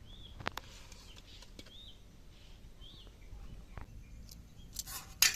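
A small bird repeating a short chirp about every second and a half. Near the end comes a louder, brief clatter of sharp knocks.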